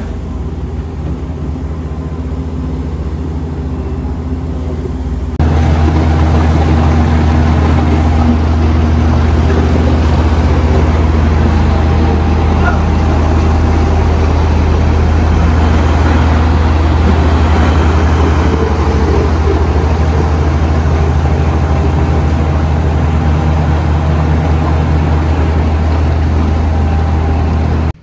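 Heavy diesel engines of a Komatsu wheel loader and a farm tractor running steadily with a deep hum, while feed is loaded into a TMR mixer wagon. About five seconds in the sound jumps louder and fuller.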